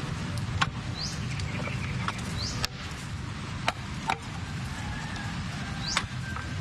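Clamshell post-hole digger with wooden handles being jabbed into soil to dig a fence-post hole, giving about five or six sharp, irregular knocks a second or so apart.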